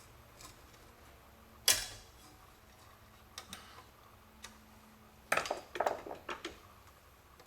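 Hand tool prying at a window trim clip on a screw-type trim stud: one sharp click a little under two seconds in, then a quick cluster of clicks and rattles about five to six and a half seconds in.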